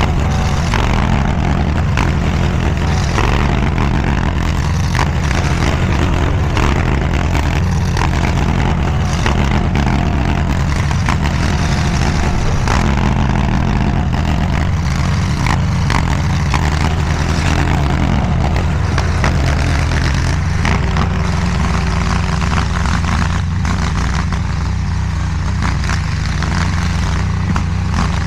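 DIGGIT SCL850 stand-behind mini skid steer's engine running steadily under load while it pushes and levels dirt, with scattered clanks and knocks from the machine working. The engine pitch dips and recovers a little about two-thirds of the way through.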